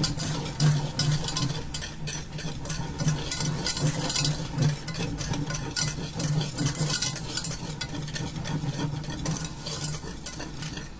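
A whisk stirring dry sugar, cocoa powder and salt in a stainless steel saucepan, with quick, continuous strokes scraping against the pot.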